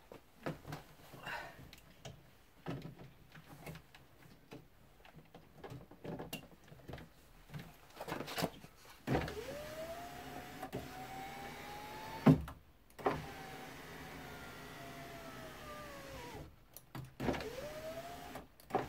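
Clicks and knocks of handling, then from about nine seconds a car's power window motor whines as it drives the glass through a newly installed window regulator, rising in pitch until it stops with a loud clunk. It then runs back the other way with the pitch falling, stops, and starts again near the end: the repaired regulator is working.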